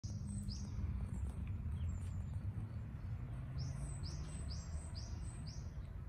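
Birds calling over a steady low rumble of road traffic from a nearby avenue. A couple of high chirps come near the start, then a run of five short, falling notes at about two a second in the second half.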